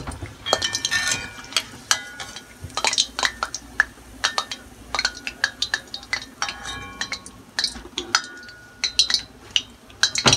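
Metal perforated spoon clinking and scraping against a karai while lifting a deep-fried pitha out of the oil: many sharp clinks, some ringing briefly.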